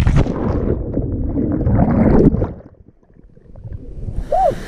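A body splashing feet-first into a river pool from a cliff jump, heard through a diving helmet camera: a sharp splash, then muffled underwater rushing and bubbling for about two seconds. This fades almost to quiet before the camera breaks the surface and open-air water noise returns.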